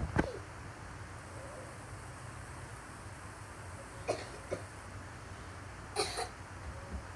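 Short, odd-sounding coughs: a sharp one right at the start, two quick ones about four seconds in, and a stronger double cough about six seconds in.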